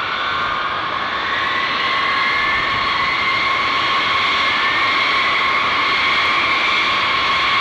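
Taxiing B-52H Stratofortress bombers' Pratt & Whitney TF33 turbofan engines, a steady jet whine with a high tone that climbs slowly in pitch over the first few seconds as the sound grows a little louder.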